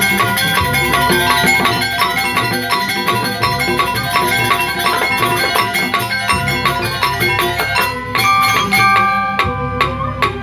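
Balinese gamelan playing Legong dance music: a fast, dense stream of struck metallophone notes over drum strokes, a little louder about eight seconds in.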